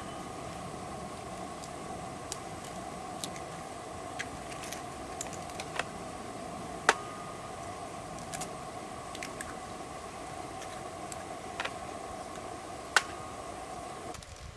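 Wood fire crackling in a folding fire pit: irregular sharp pops and snaps, three of them louder, over a steady hiss.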